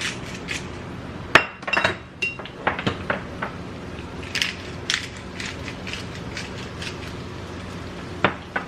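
Scattered clinks and knocks of a utensil against a pan of broccoli cooking in butter, over a steady low background hum.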